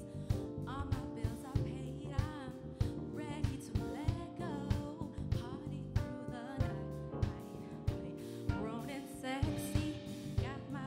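A live band playing: a woman singing a winding melody over a drum kit keeping a steady beat and an electric bass guitar.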